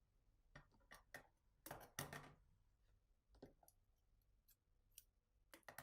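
Faint, scattered rustles and soft clicks of hand sewing: a needle and thread drawn through jacket fabric and the cloth being handled.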